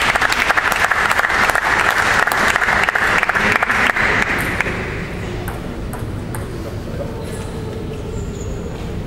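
Spectators clapping after a point, a dense patter of claps that dies away after about four and a half seconds, leaving the murmur of the hall with a few scattered light taps.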